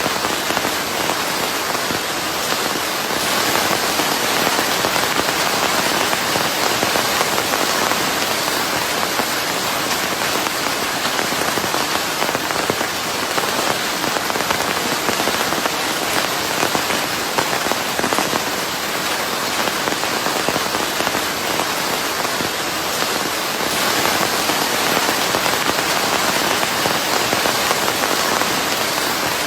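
Steady rain falling, an even hiss of countless drops on a surface, with no let-up or change in strength.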